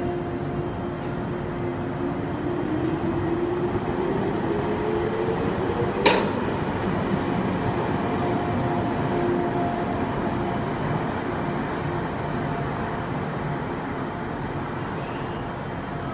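JR 115 series electric train pulling out and accelerating past: wheels rumbling on the rails, with a motor whine rising in pitch over the first six seconds and a single sharp clack about six seconds in. Its running noise then eases off as it moves away.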